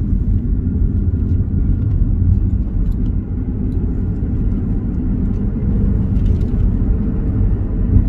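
A car driving, heard from inside the cabin: a steady low rumble of engine and road noise.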